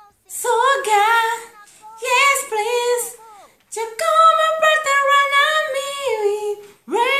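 A woman singing alone in a high voice, without accompaniment, in three phrases with sliding, wavering pitch.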